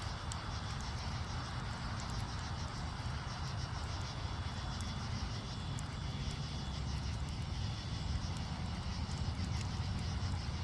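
Crickets chirping steadily over a continuous low rumble, with a few faint scattered clicks.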